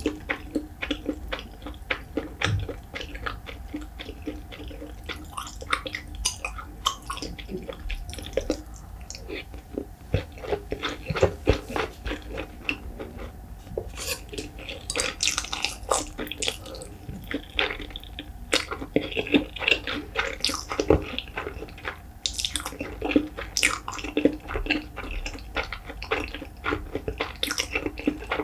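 Close-miked chewing of rice and salted pollock roe: a continuous run of wet, sticky mouth clicks and smacks, busier and louder in the second half.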